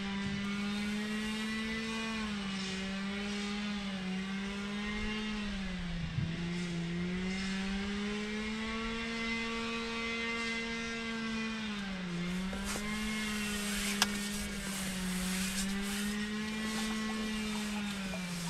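A small engine or motor running steadily, its pitch sagging briefly and recovering every few seconds. A single sharp click comes about 14 seconds in.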